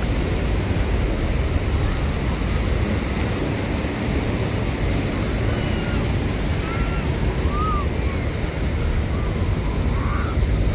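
Steady rush of ocean surf breaking on the beach, mixed with wind buffeting the microphone, heaviest in the low end.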